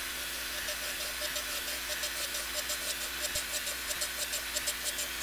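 Surface grinder running, its dressed wheel taking a light finishing pass across a steel plate: a steady motor hum under a hiss. From about two seconds in the hiss comes in quick pulses, several a second, as the wheel cuts and throws sparks. The pass removes about three ten-thousandths of an inch to clean up the surface.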